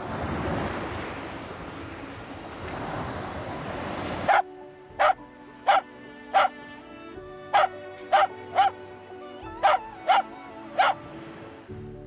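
Waves washing on a beach for about four seconds, then a dog barking about ten times in short, sharp single barks, roughly one every half second to second.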